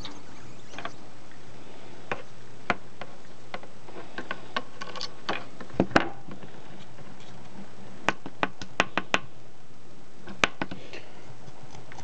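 Scattered sharp clicks and light knocks of small hand tools and a plastic Loc-Line nozzle being handled while tapping the nozzle's threads. The loudest knock comes about six seconds in, and a quick run of five clicks follows between eight and nine seconds in, over a low steady hum.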